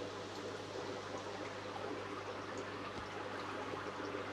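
Steady trickling and running water of aquarium filtration, over a low steady hum.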